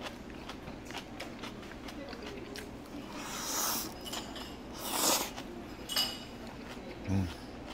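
Close-up eating sounds: chewing and two short slurps of food from a small metal bowl, the second about a second and a half after the first, with light clicks of chopsticks against the bowl.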